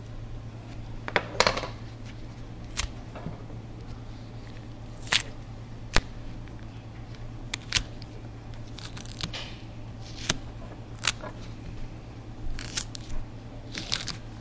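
Thick green buckeye husk being cut and pried apart by hand: about a dozen sharp snaps and clicks at uneven intervals as the husk splits and breaks, over a steady low hum.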